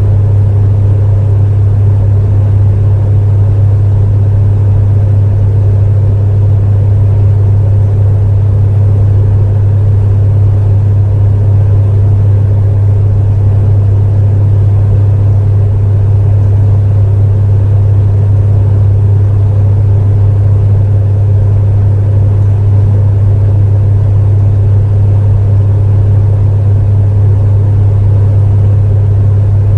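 Space heater running steadily: a loud, unchanging low hum with a fainter whir above it.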